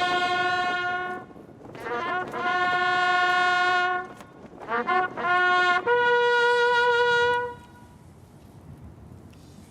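Military bugle call on a single brass instrument: two long held notes, a run of quick short notes, then a final higher held note that ends about three-quarters of the way through.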